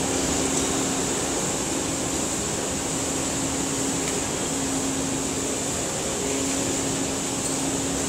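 Steady mechanical drone from a Bobcat skid-steer loader driving off amid the running machinery of a waste-sorting plant, with a low hum that fades in and out.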